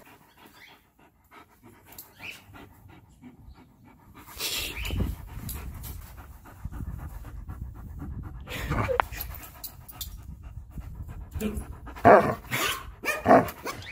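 Dog panting hard while tugging on a rope toy, with a few short louder bursts of noise about four, nine and twelve seconds in.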